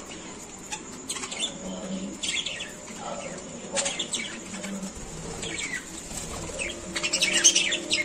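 Budgerigars chirping and chattering in short, quick warbles, growing busier and louder near the end.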